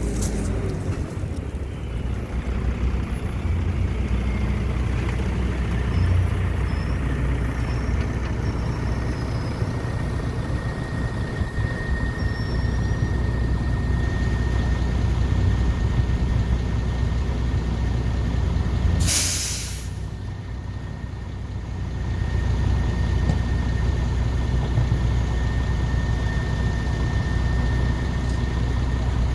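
Heavy diesel truck engine running steadily at a low rumble, with one sharp air-brake hiss lasting about a second about two-thirds of the way through.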